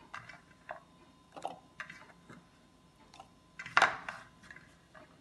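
Peeled shallots being dropped by hand into a plastic blender jar: a scatter of light clicks and taps, with a louder clatter a little under four seconds in.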